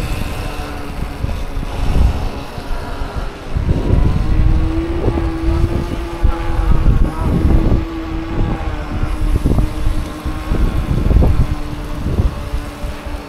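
Wind buffeting the microphone of a camera moving along with an electric unicycle ride, in uneven gusts. A steady hum holds one pitch from about four seconds in until near the end.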